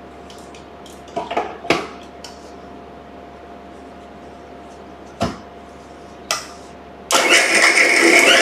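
A few knocks and clicks as the jar of an electric mixer grinder is handled and set on its base, then about seven seconds in the mixer grinder switches on and runs loudly, blending milk, ice cubes and ice cream.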